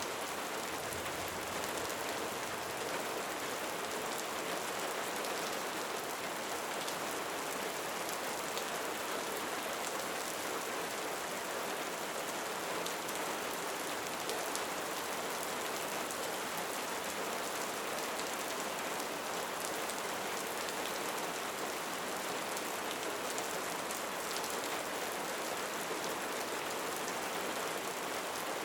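Steady rain falling on surfaces, an even hiss with scattered faint drop ticks.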